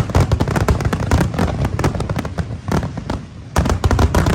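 Fireworks display: a dense, rapid crackle of many small bursts and pops with deeper booms underneath, easing briefly about three seconds in before a fresh volley of bangs.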